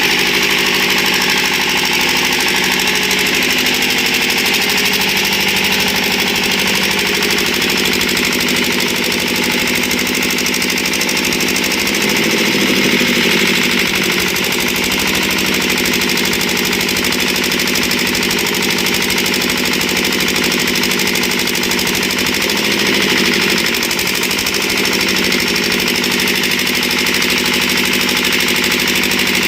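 Diesel engine of a 200-amp welding generator running steadily, with two brief swells in speed, one midway and one later on.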